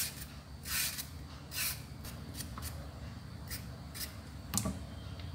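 Vegetable peeler scraping the skin off a green banana in short strokes: two stronger scrapes in the first two seconds, then lighter scrapes and ticks.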